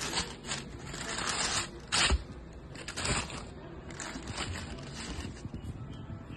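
Tissue paper rustling and crinkling as it is pulled back in a shoebox, in several bursts, the loudest about two and three seconds in, then softer rustles as the shoe is lifted out.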